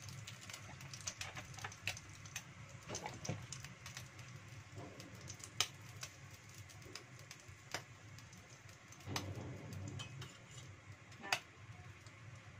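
Cooking oil heating in a wok over a gas flame, giving off faint, irregular pops and ticks, a couple of them louder, over a low steady hum.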